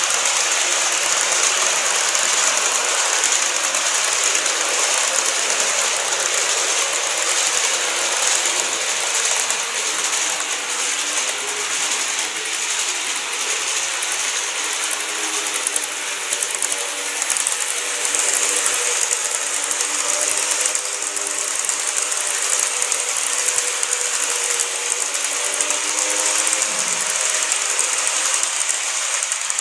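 N-scale model trains (a KATO E259 series Narita Express and a TOMIX 209 series 2100) running on plastic track, a steady mechanical whirring and fine rapid clicking from their motors, gears and wheels. From about halfway through, a low motor hum joins in as the two trains approach together, then fades near the end.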